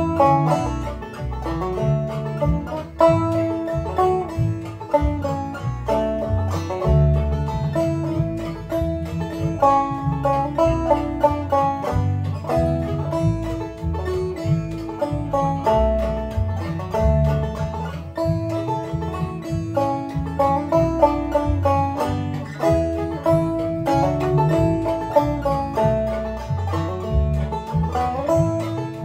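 Deering Clawgrass 2 banjo played clawhammer style in standard G tuning, a quick run of plucked notes carrying an instrumental melody in the key of A. A computer-generated backing track with a bass line plays underneath.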